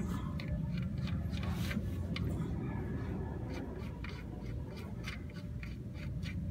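Light clicks and scrapes of a hand screwing an oil drain plug back into a car's oil pan, over a steady low hum.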